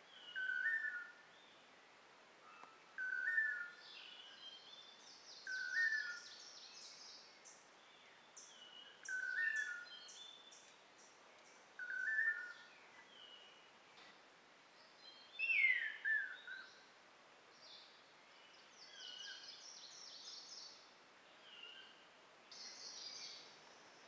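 Several wild birds singing: a short two-note whistle repeated about every three seconds, with rapid higher trills from other birds between them. About two-thirds through comes one loud downward-sliding call, the loudest sound here.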